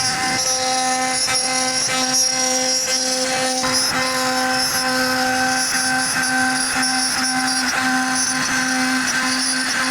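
CNC router spindle running steadily with a whine while carving wood, the tone briefly faltering every second or so.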